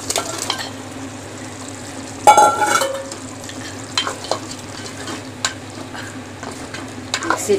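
Chicken pieces sizzling as they fry in a spiced onion-tomato masala in a pot, stirred with a spoon that scrapes and taps against the pot, with one louder clatter about two seconds in.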